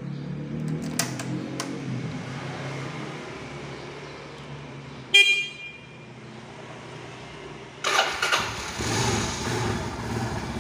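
Kawasaki motorcycle's horn sounds one short beep about halfway through. Near the end the electric starter cranks and the engine starts and runs, turning over very easily: the sign that the reconditioned sealed dry battery is back to full charge.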